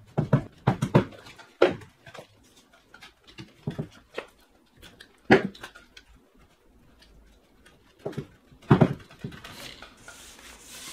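A spline roller pressing rubber spline into a plastic screen track, with irregular knocks and clicks as the roller and hands work the screen against the frame.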